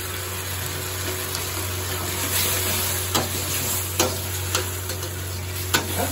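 Metal spatula stirring and scraping a sizzling chilli sauce with onions and capsicum around a black wok. Several sharp clanks of the spatula against the wok come in the second half, over a steady low hum.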